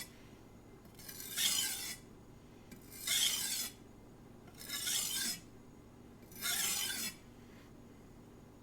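Knife blade drawn across a coarse King 300 whetstone in four light, edge-leading strokes, each a short scraping rasp about a second and a half apart. These are deburring strokes that take the burr off the edge.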